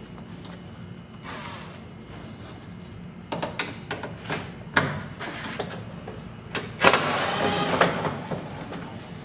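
Tools and metal parts clicking and knocking inside a car door, with a cordless power driver running for about a second, about seven seconds in, as it backs out a window-regulator bolt.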